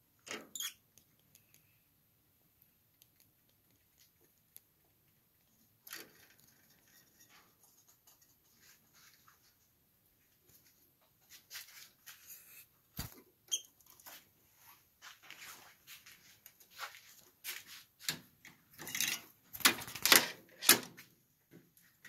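Lovebirds giving short, high chirps and squeaks, scattered and sparse at first, then coming thick and louder over the last few seconds.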